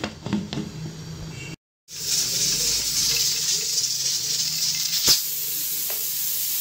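Pressure cooker hissing steadily as steam escapes from its vent under pressure, starting about two seconds in, with one sharp click near the end. Before that, a few knocks from the pot's lid.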